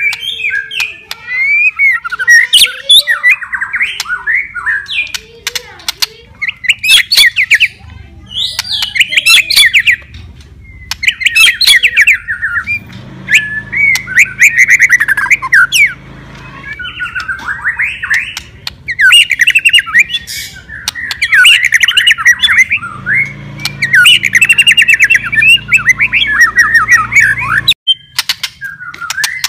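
White-rumped shama singing in full song: rapid, varied whistled phrases mixed with harsh chattering notes, delivered in bursts of a few seconds with short pauses between.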